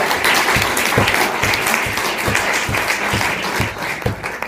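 Lecture audience applauding: a dense patter of many hands clapping that dies away near the end.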